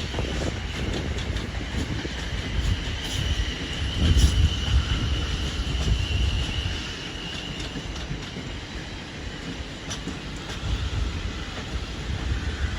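Train moving along the rails with a steady low rumble, a thin high wheel squeal held for several seconds in the first half, and a few short clicks from the wheels.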